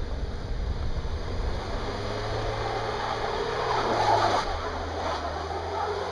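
A car driving on a snow-covered, icy road: a steady engine hum under the rush of tyre and road noise, with the engine note dropping about two thirds of the way through.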